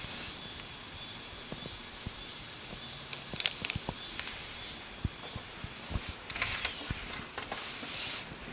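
Faint handling noises: light taps and clicks, with a few brief rustles of the decal's transfer tape as it is positioned on the toolbox, over a steady background hiss.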